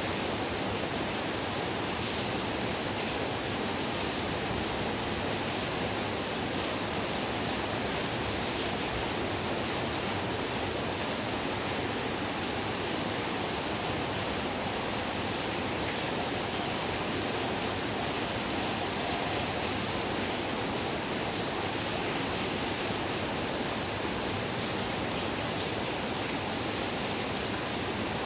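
Heavy rain falling steadily, an even unbroken hiss of rain.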